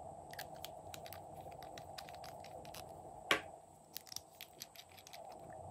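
Light clicks and ticks of small glass nail polish bottles and their plastic caps being handled, capped and twisted open, with one sharper click about three seconds in.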